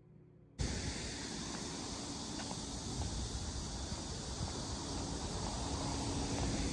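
Outdoor ambience heard while walking, with wind buffeting the phone's microphone: a steady rushing noise that cuts in suddenly about half a second in, after faint background music.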